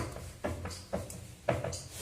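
A handful of light knocks and clicks, about two a second.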